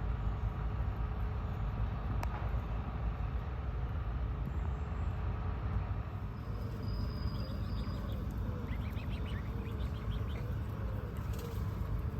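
Steady low rumble of city traffic, with birds chirping in quick runs of short notes during the second half.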